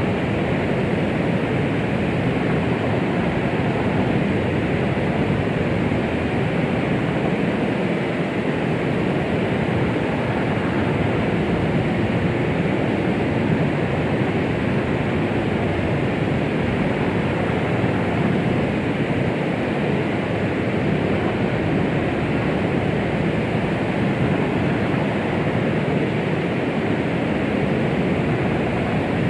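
Steady electronic white noise of the womb-sound kind used to soothe babies: an even, unbroken rushing hiss, fuller in the low and middle range than in the highs, with no beat or change.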